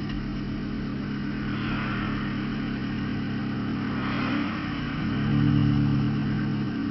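BMW M52TU 2.8-litre straight-six running through a straight-piped exhaust with no mufflers or silencers, at a steady idle, then growing louder about five seconds in as it is given some revs.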